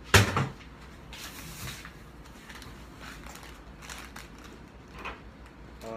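Kitchen items being handled while spices are added to chicken: one sharp knock just after the start, then faint scattered clicks and rustles.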